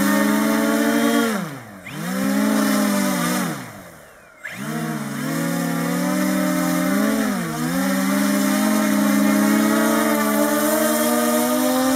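Propellers of a large three-rotor model aircraft running together with a loud, multi-tone hum. The pitch twice drops almost to a stop and spins back up in the first few seconds, the second time restarting suddenly. It then holds steady, apart from a short dip about halfway through, as the throttle is worked on the ground.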